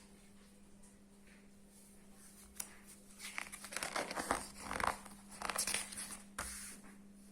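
Rustling and crinkling of handled material, as irregular crackles and scrapes that start a little over a third of the way in and stop near the end, over a faint steady hum.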